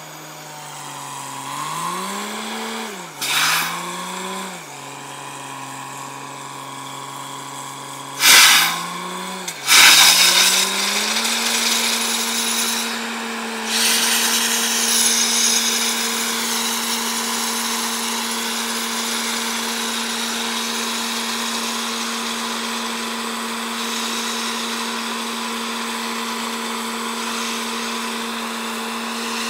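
Truck-mounted borewell drilling rig: its engine revs up and down for about ten seconds, broken by three short loud blasts. It then settles into a steady high drone with a constant rushing hiss as compressed air drives the drilling and blows dust out of the bore.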